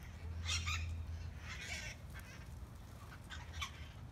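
Parakeets squawking: three short bursts of harsh calls over a low steady rumble.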